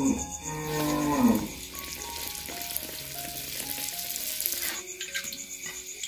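Taro-dough doughnut deep-frying in hot oil in a wok, a steady sizzle that starts about a second in and drops away about five seconds in.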